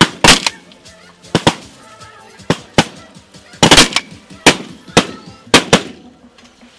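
A volley of shotgun blasts from several hunters shooting at a flying snow goose: about a dozen loud shots, irregular and often in quick pairs or triples, spread over six seconds.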